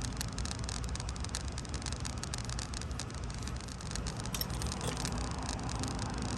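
Light metallic clicks and taps of brake pads and their retaining clips being fitted into a disc brake caliper bracket, over a steady low rumble.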